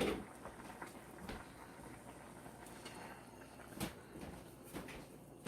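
A few light knocks and clatter of cookware handled in a kitchen sink, over a low steady hiss.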